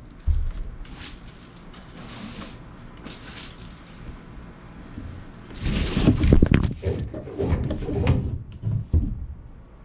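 Broom sweeping dry leaves across wooden deck boards: separate swishes with rustling, crackling leaves about once a second. From about six seconds in it turns louder and closer, with knocks, bumps and crackling as the broom pushes leaves against and around the microphone.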